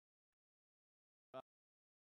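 Near silence, broken once, about a second and a half in, by a very short clipped blip of a man's voice.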